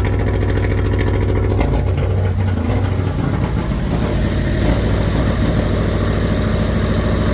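Fiat Abarth's 1.4-litre turbocharged four-cylinder idling steadily just after a fresh start, following a turbo rebuild. The engine is throwing a random-misfire code that the owner puts down to oil-fouled spark plugs, with heavy blow-by he suspects comes from worn piston rings.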